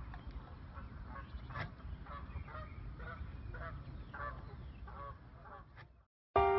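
Geese honking, about two short calls a second, over a low rumble of wind on the microphone. The calls cut off about six seconds in.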